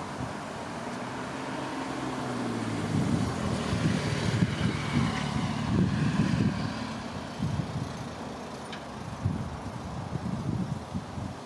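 A motor vehicle's engine going by, growing louder over the first few seconds and then fading. A few short knocks or rustles follow near the end.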